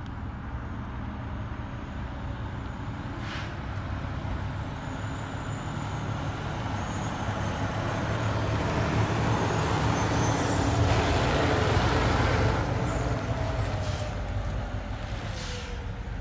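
Fire truck driving past: its diesel engine and tyres rumble louder to a peak about two-thirds of the way through, then fade as it moves away.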